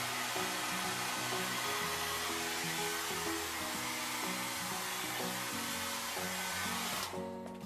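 Hand-held hair dryer blowing with a steady hiss, switched off about seven seconds in, over background music.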